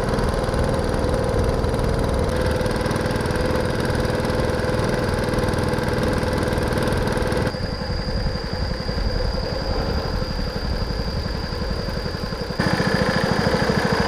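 A small river boat's engine running steadily under way, a continuous drone whose tone and level change abruptly a few times.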